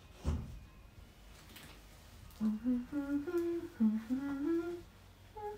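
A woman humming a tune to herself in held, stepping notes, starting about halfway through, after a brief soft noise near the start.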